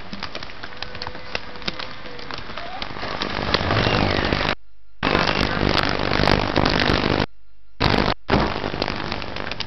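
Crackling, hissing noise from a worn videotape soundtrack, thick with clicks, that cuts out briefly about five seconds in and twice more around seven and a half to eight seconds: tape dropouts.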